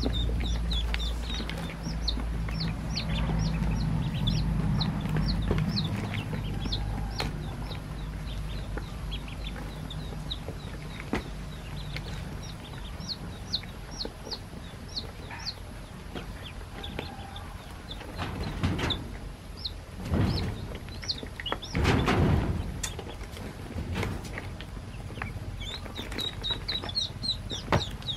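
A box full of newly hatched ducklings peeping: many short, high calls that slide down in pitch, thickest near the start and end. There is a low rumble in the first few seconds and a few louder noisy bursts past the middle.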